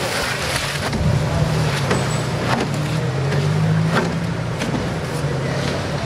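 A motor engine running steadily, with a few short knocks and scrapes about a second, two and a half seconds and four seconds in.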